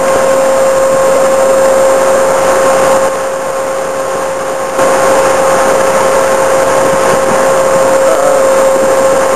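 XM1126 Stryker eight-wheeled armored vehicle's diesel engine running as it drives across rough ground, with a steady whine over the engine noise. It goes quieter for a couple of seconds about three seconds in.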